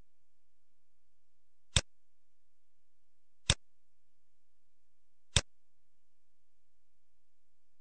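Three sharp computer mouse clicks, spaced a little under two seconds apart, over a faint steady hiss.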